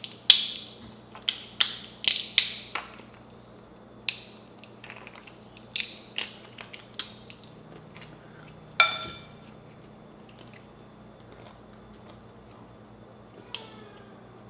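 Crab legs being cracked open with a metal seafood cracker: a run of sharp cracks and crunches of shell, mostly in the first half, and one ringing metal clink about nine seconds in.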